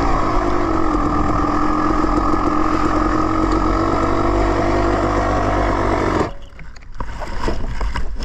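Dirt bike engine running at a low, steady speed, then cutting out suddenly about six seconds in. Scattered clicks and rustling follow.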